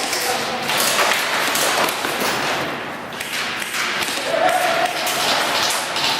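Airsoft guns firing and BBs striking surfaces in a warehouse, a dense irregular clatter of snaps and thuds.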